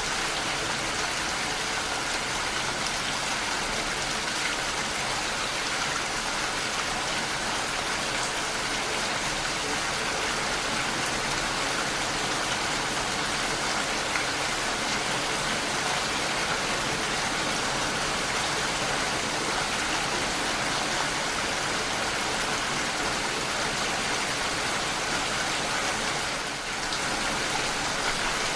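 Steady rain, a dense even patter of drops falling without a break.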